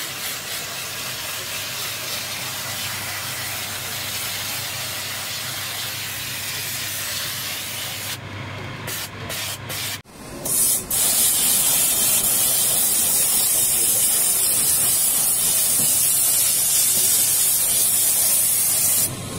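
Steam hissing from the blue hand nozzle of a Scarpavapor No Limits shoe-cleaning steamer as it is played over a shoe. The hiss breaks off several times in quick succession a little after 8 seconds in, then comes back louder and sharper, and stops abruptly near the end.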